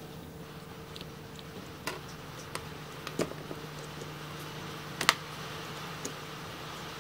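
A few small, sharp plastic clicks and taps as an RC car's plastic chassis and its small wire connectors are handled, the loudest about five seconds in, over a steady low hum.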